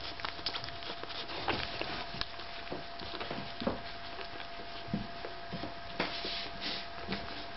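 Five-day-old Staffordshire Bull Terrier puppies suckling from their mother: irregular soft clicks and smacks, with a few short low squeaks. A faint steady tone runs underneath.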